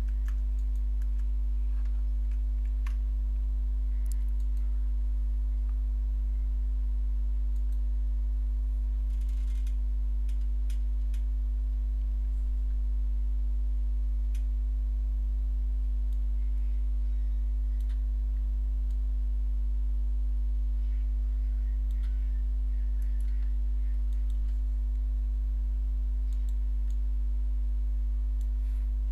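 Steady low electrical hum throughout, with a few faint scattered computer keyboard and mouse clicks as code is edited.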